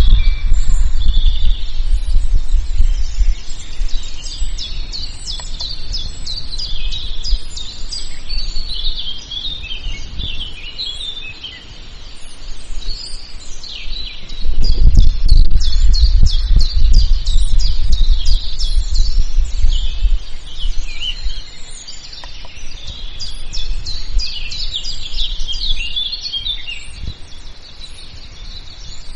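Songbirds chirping and trilling, several overlapping, throughout. A low rumble swells at the start and again about halfway through, the loudest part.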